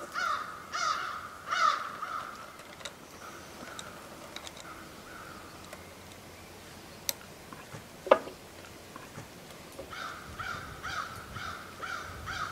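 A crow cawing in a series of harsh calls, a few at the start and another run near the end. Two sharp clicks in between come from tool work on the outboard motor's ignition points.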